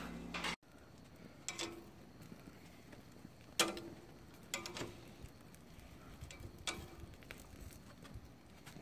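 A few sharp clinks, metal tongs against a plate as grilled sausages are loaded onto it, spaced a second or more apart over a quiet background. A short stretch of room noise at the start cuts off abruptly under a second in.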